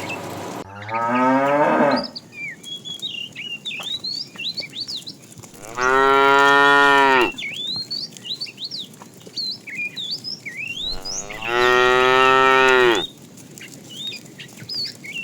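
Cows mooing: three long moos, about five seconds apart, each lasting a second or more. Many short, high chirps fill the gaps between them.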